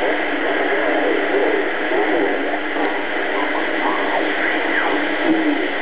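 Shortwave static and hiss from a Philco-built BC-312G vacuum-tube communications receiver being tuned across the band, with faint whistles gliding in pitch in the second half.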